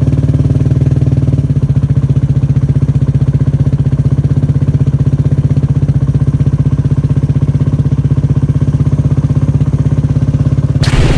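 Single-cylinder motorcycle engine running steadily with a fast, even beat. A sudden higher sweeping sound joins it shortly before the end.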